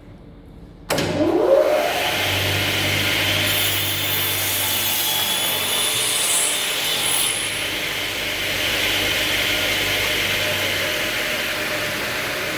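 TKP-120 industrial rotary cross-cut saw switching on about a second in, its blade spinning up with a rising whine, then running loud and steady while sawing wood.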